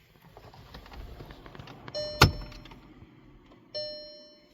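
Plastic dashboard trim around a car stereo being pried loose with a trim removal tool: scraping and rubbing, then a sharp snap about two seconds in as a retaining clip lets go, and a second click near the end, each followed by a short ringing tone.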